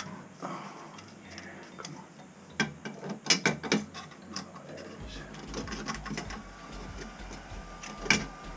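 Chrome pop-up drain parts clicking and knocking as they are handled and fitted into a bathroom sink's drain. A cluster of sharp clicks comes about three seconds in, and another single loud click comes near the end.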